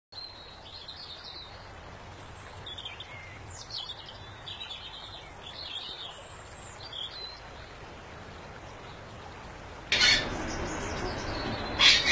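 Small songbirds chirping and trilling in short high phrases over a low steady background. About ten seconds in the background noise rises suddenly, and a loud chirp comes near the end.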